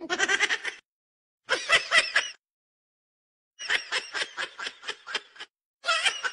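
A small kitten crying loudly with its mouth wide open, in four bursts of quick, stuttering mews. The third and longest burst is a run of short pulses, a few a second.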